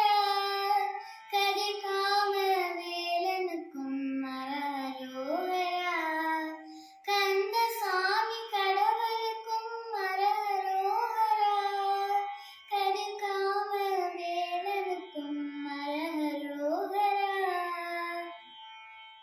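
A young girl singing a Tamil devotional song to Murugan, solo and unaccompanied, in phrases broken by short pauses. The singing stops shortly before the end.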